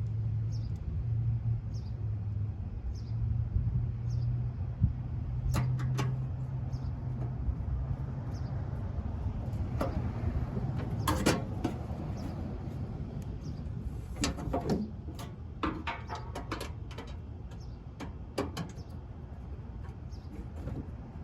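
Metal parts of a portable pellet grill being handled during reassembly: scattered clicks, knocks and rattles as bolts are started loosely by hand, over a steady low hum that fades out about a third of the way in.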